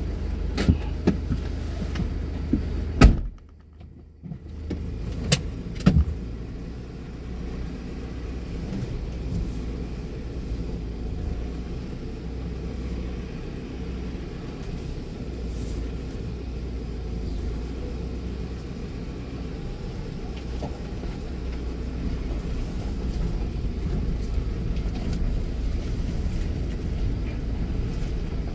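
Steady low rumble of a car on the move, with a few sharp clicks in the first six seconds; the loudest click, about three seconds in, is followed by a brief drop to near silence.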